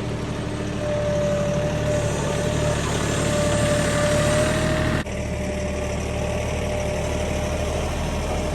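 An engine running steadily at an even speed, with a sharp brief break about five seconds in.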